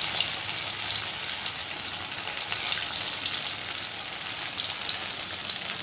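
Shredded parboiled potato deep-frying in hot oil in a steel kadai on high flame, just after being dropped in: a steady sizzle with many small crackles and an occasional sharper pop.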